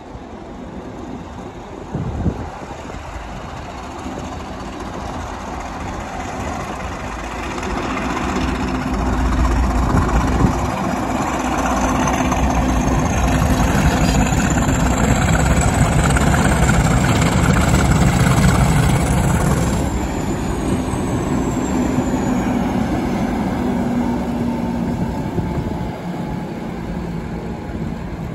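Two Class 50 diesel-electric locomotives, each with an English Electric 16CSVT V16 engine, pulling away under power with a train of coaches and passing close by. The engine noise builds to a peak as they come alongside and eases as they go past, with a high whine that climbs and then falls in pitch. There is a short knock about two seconds in.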